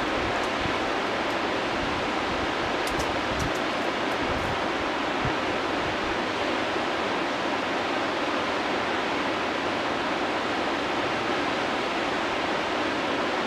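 Steady, unbroken rush of whitewater rapids: a big river wave churning through a rocky channel.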